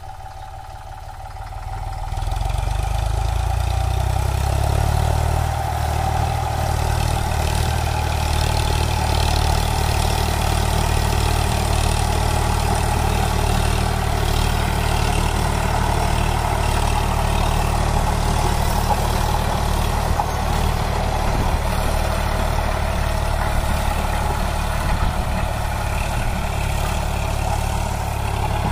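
Eicher 548 tractor's three-cylinder diesel engine running steadily under load while pulling a rotavator through the soil; it gets clearly louder about two seconds in.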